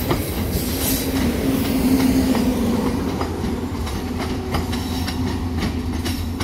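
ETR 500 Frecciarossa high-speed electric trainset departing at low speed, its wheels clicking over rail joints and points under a steady rumble and low hum. The rear power car rolls past about four seconds in.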